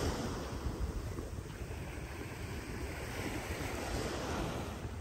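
Small Gulf of Mexico surf washing steadily onto the beach, with wind buffeting the microphone.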